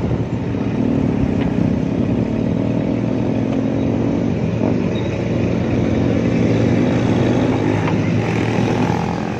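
Motorcycle engine running at low speed, heard from the rider's own bike, with a steady engine note over wind and road rumble as the bike slows down.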